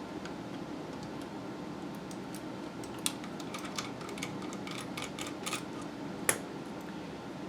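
Light clicks and taps of a small screwdriver against the hard plastic of a computer mouse's shell as screws are worked out, a scatter of clicks in the middle and one sharper click near the end.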